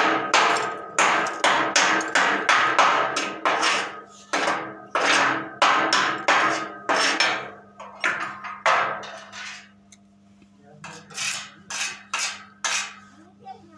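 Hammer striking steel in a quick run of ringing metallic blows, about two to three a second, then after a short pause four more blows near the end.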